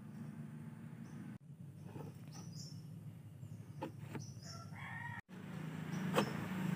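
A rooster crowing about four seconds in, with a few short high chirps before it, over a steady low hum. A sharp click near the end is the loudest sound.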